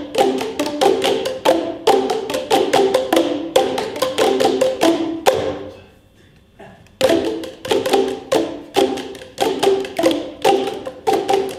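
Instrumental music: a quick, even run of short struck or plucked pitched notes, each dying away fast. The notes break off about six seconds in and start again a second later.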